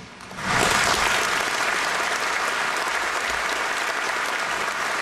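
Large seated audience applauding. The clapping swells quickly about half a second in, as the speech ends, and then holds steady.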